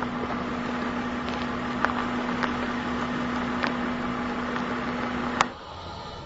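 Car rolling over gravel: steady tyre crunch and engine hum with a few sharp stone pops. It cuts off suddenly about five and a half seconds in, leaving a much quieter background.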